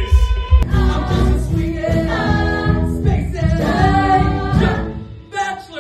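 Live musical-theatre recording of a cast singing held, harmonised notes together over a pulsing low band accompaniment. An abrupt cut to another recording comes about half a second in, and the singing fades near the end.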